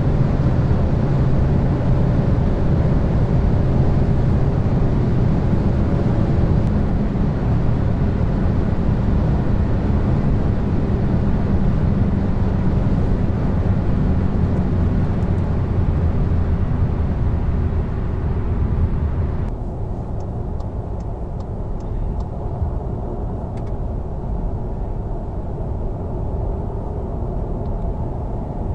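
Tuned VW Golf R's turbocharged four-cylinder engine droning steadily under tyre and wind noise, heard from inside the cabin at motorway speed. About two-thirds of the way through, the sound turns suddenly duller and a little quieter.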